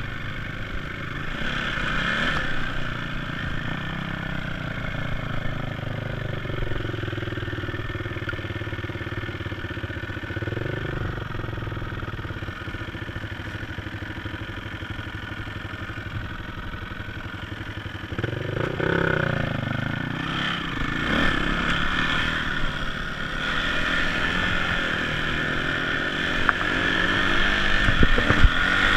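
Yamaha dirt bike's engine running under way, the revs rising and falling with the throttle, with a sharp rise in pitch about two-thirds of the way through and growing louder near the end.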